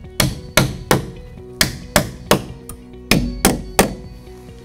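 Hammer driving steel nail plates into wooden 2x4 studs: nine sharp strikes in three quick groups of three.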